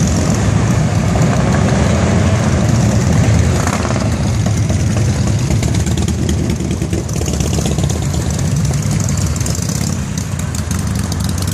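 Cruiser and touring motorcycles riding past one after another, their engines running loud and rumbling steadily, mixed with other street traffic.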